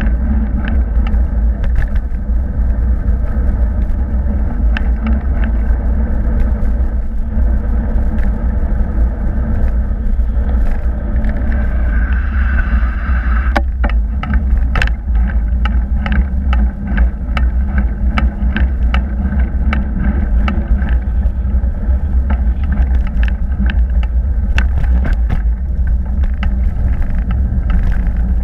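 Bicycle ride picked up on a handlebar-mounted camera: a steady low rumble of wind buffeting the microphone and tyre noise on tarmac, with frequent small clicks and rattles as the bike goes over bumps.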